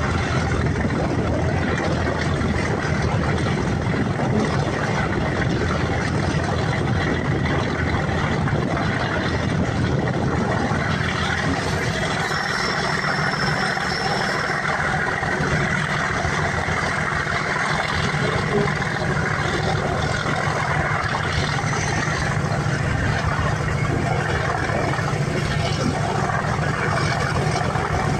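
Class 37 diesel locomotive working hard at the head of a passenger train, heard from a carriage along with the steady rumble of wheels on rail while the train runs at speed.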